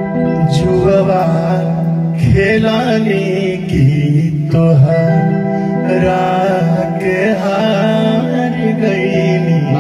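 Singing of a rustic folk wedding song (vivah geet), a wavering sung melody over steady held instrumental notes.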